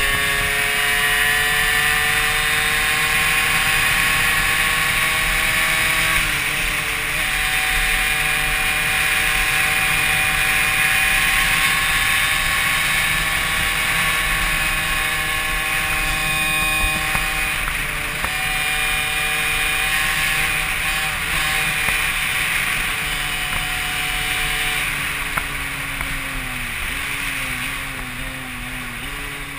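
Derbi Senda motorbike engine under way, heard from the rider's helmet with wind on the microphone. The engine note climbs slowly through each gear and drops suddenly at upshifts about six seconds in and again around eighteen seconds. Near the end it falls away in steps as the bike slows and changes down.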